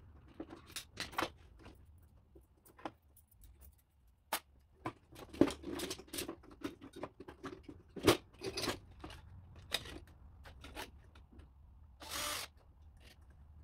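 Irregular clicks, taps and knocks of a screwdriver and loose metal parts as a stepper motor is unscrewed from a photocopier's frame, with a short rasping burst near the end.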